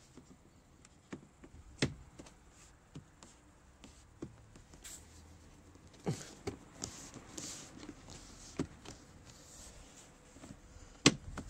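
Sporadic light clicks, taps and rustling from plastic door trim and its clips being handled and pressed on a Range Rover door. The sharpest click comes about two seconds in, with a spell of rubbing and rustling just past the middle.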